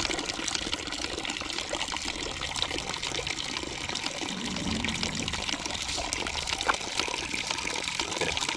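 Water running steadily from a yard hydrant's spigot and trickling onto the ground, with a few small clicks of bottles being handled.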